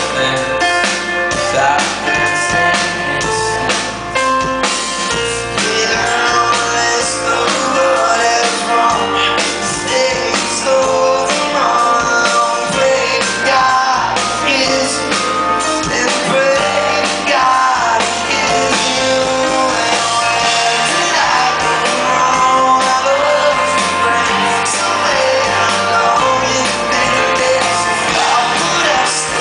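A rock band playing live, with lead vocals sung over grand piano and electric guitar, heard from within the audience.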